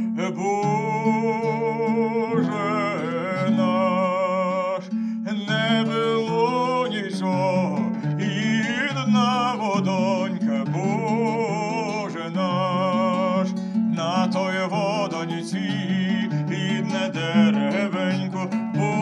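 A man singing a slow ballad with vibrato, accompanying himself on a plucked bowl-backed lute.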